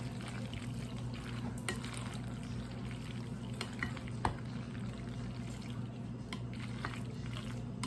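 Macaroni salad in mayonnaise being stirred in a bowl with a spoon: soft wet mixing sounds with a few sharp clicks of the spoon against the bowl, over a steady low hum.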